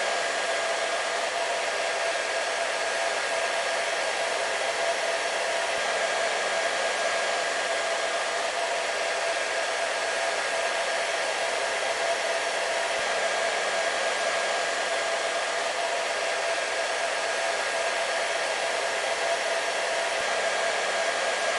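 Hair dryer running steadily: a constant rush of air with a steady motor whine, unchanging throughout.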